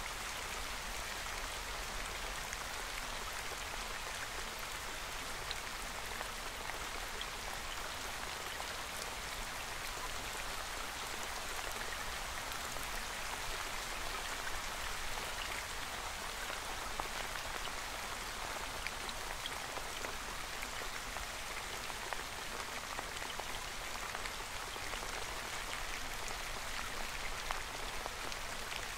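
Steady rain: an even hiss of falling drops with scattered small ticks, unchanging throughout.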